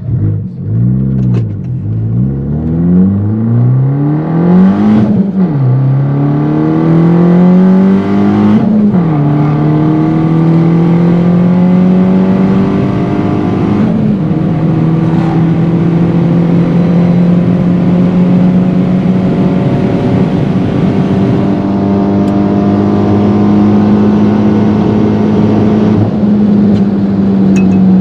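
Fiat 500 Abarth's 1.4 L MultiAir turbo four-cylinder, running a GT2860 turbocharger on the stock tune, accelerating hard through the gears, heard from inside the cabin. The engine note climbs and drops sharply at each of several upshifts in the first fifteen seconds, then holds a steady pitch at highway speed.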